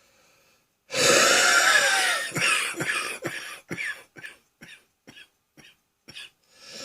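A person coughing from a congested, wheezy chest: about a second in, one long harsh cough with whistling wheeze tones in it, then a string of shorter, weaker coughs about two a second that die away.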